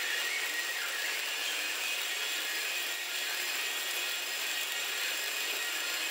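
Shielded metal arc (stick) welding with a 7018 basic low-hydrogen electrode, running a vertical-up bead: the arc crackles and sizzles steadily throughout.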